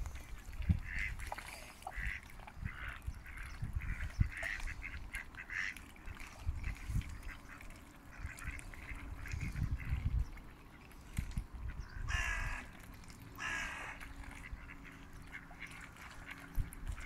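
Mallards quacking: soft, short calls on and off, then two longer, louder quacks about two-thirds of the way through. Low rumbling thumps run underneath.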